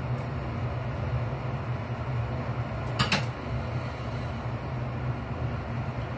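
Kitchen range hood fan running with a steady hum, and a short sharp clatter about three seconds in.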